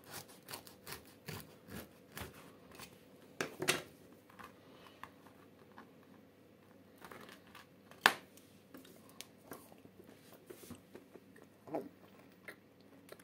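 Kitchen knife sawing through the crust of a rye loaf on a plastic cutting board: a run of short crunchy strokes, about two to three a second, for the first few seconds. After that only scattered light taps of knife and bread on the board, with one sharp click about eight seconds in.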